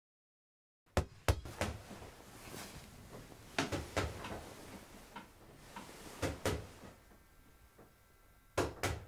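Sharp knocks, mostly in pairs, every two to three seconds over a quiet room, starting about a second in.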